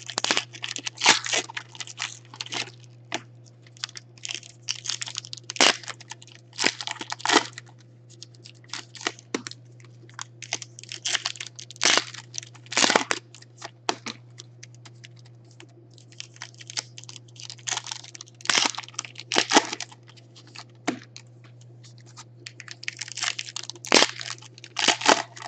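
Foil wrappers of Panini Contenders football card packs crinkling and tearing open by hand, in irregular crackly bursts, over a steady low hum.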